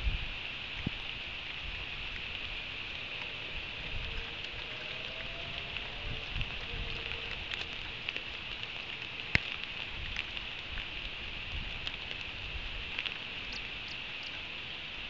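Steady rain falling on the nest platform, a constant hiss with scattered sharp ticks of drops striking, the loudest about nine seconds in.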